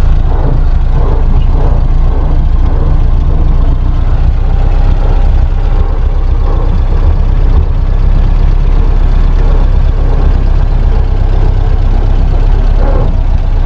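1930 Ford Model AA truck's four-cylinder flathead engine running steadily as the truck moves off slowly under light throttle, heard from inside the cab.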